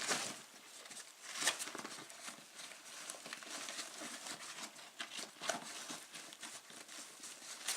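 Soft rustling with a few light knocks as a first aid kit pouch is handled.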